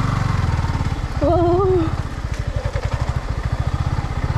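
Motorcycle engine running under way with a steady low pulsing. About a second in, a voice calls out briefly with a wavering pitch over it.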